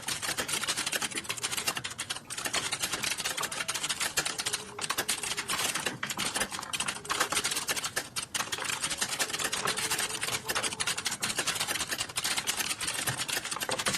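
Fast, continuous typing on a computer keyboard: a dense run of key clicks with a few brief pauses.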